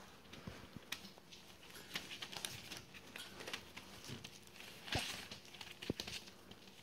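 Three-to-four-week-old border collie puppies moving about on newspaper: the paper rustles and crinkles under their paws, with scattered small taps and ticks, the loudest about five and six seconds in.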